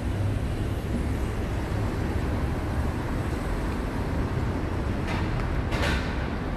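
Steady low rumble of road traffic, with a brief hiss about five to six seconds in.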